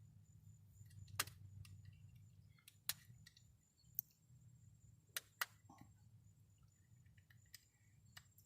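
Faint, sharp plastic clicks and ticks, about half a dozen spaced a second or so apart, as a screwdriver prises at the latch of a GM wiring connector to release it, over a low steady hum.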